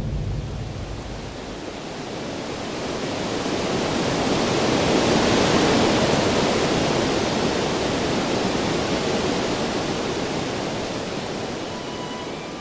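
Sea water rushing along the hull and bow wave of a sailing yacht under way, an even hiss that swells to its loudest about halfway through and slowly fades, as of the boat passing by.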